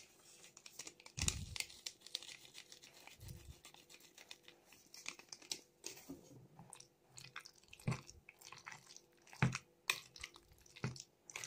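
Fairly quiet kitchen handling sounds: a foil spice sachet crinkling as ground pepper is shaken out, then a metal spoon scraping and clicking against a plastic bowl while stirring a mayonnaise-dressed salad. There are a couple of dull knocks early on and a few sharper clicks later.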